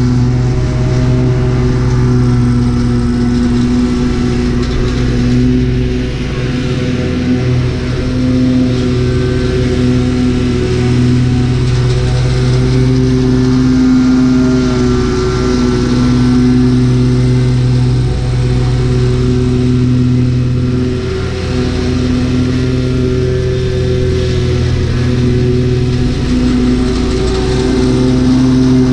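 Lawn mower engine running steadily at working throttle, its pitch and level wavering slightly now and then under changing load.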